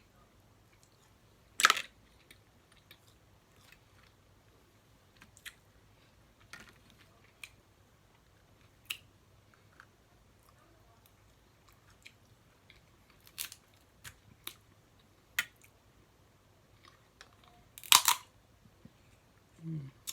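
Snow crab leg shells being cracked and snapped apart by hand: two loud cracks, one about two seconds in and one near the end, with scattered small clicks of shell and quiet chewing between.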